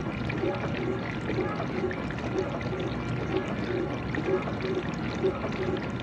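GE dishwasher running its wash cycle: water spraying and splashing steadily inside the tub, with a low pulse about twice a second.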